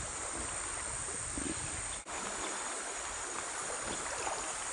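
Steady rushing of flowing river water, with a brief drop-out about two seconds in.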